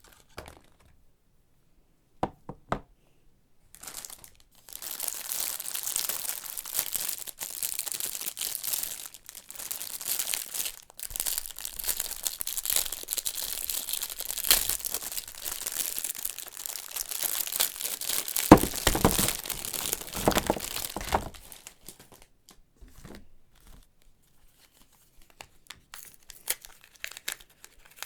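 Plastic wrapping on a bar of soap crinkling and tearing as it is unwrapped. A few light clicks come first, then a long stretch of continuous crinkling, loudest near its end, which dies away into small scattered ticks.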